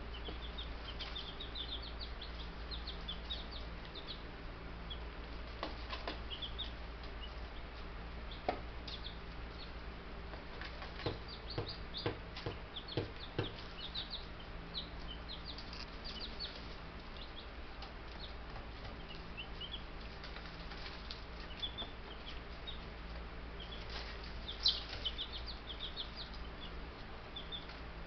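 A brood of Buff Brahma chicks a few days old, peeping with many short, high cheeps. There are scattered sharp taps, a quick run of them a little before the middle and a louder one near the end.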